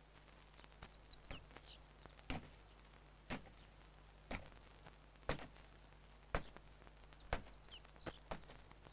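Soundtrack of a hand-drawn cartoon: soft thumps repeating evenly about once a second, growing louder over the first few seconds, with brief bird chirps twice, about a second in and again near the end.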